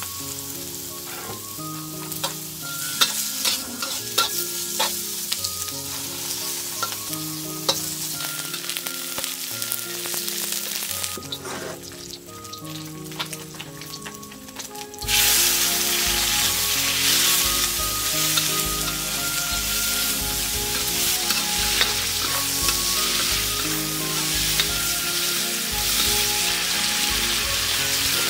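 Food frying in a pan with sizzling and the clicks and scrapes of stirring. About halfway through, the sizzling suddenly becomes much louder. Quiet background music plays underneath.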